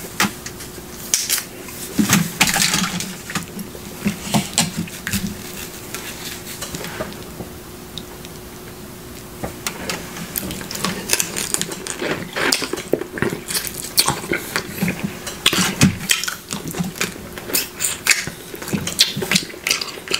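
Snow crab legs being cracked and picked by hand: irregular crackling snaps of shell and wet squishing clicks as the meat is pulled out, over a faint steady hum.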